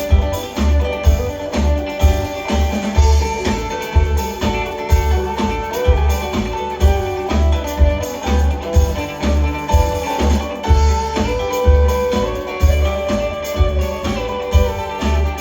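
Live band playing an instrumental break: a lead guitar line of held and bending notes over bass and a steady low beat of about two thumps a second.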